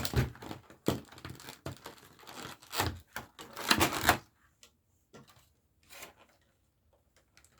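Hands handling trading cards and their packaging: quick clicks and rustles, busiest in the first four seconds, then only a few faint ticks.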